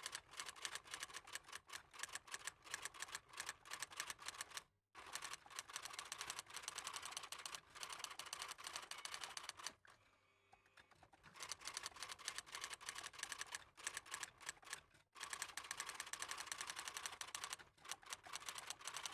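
Fast, faint typing clicks in runs of several seconds, breaking off briefly about five, ten and fifteen seconds in.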